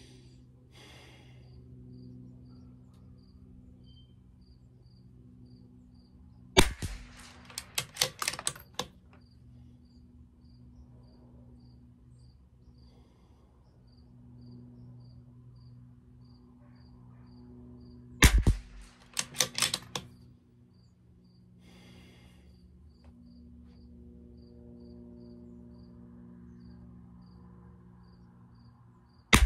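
Bergara B14R .22 LR bolt-action rifle firing twice, about twelve seconds apart, with a third shot right at the end. Each shot is followed by the bolt being worked, a quick run of metallic clicks lasting about two seconds.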